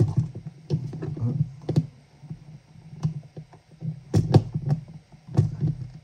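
Screwdriver tightening a terminal screw on an electrical outlet: irregular clicks and knocks of the tool and the outlet being handled, with a few louder knocks past the middle.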